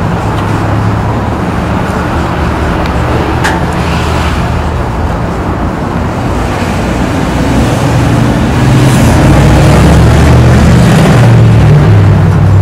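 Car engine and road noise: a steady low hum that grows louder about eight and a half seconds in.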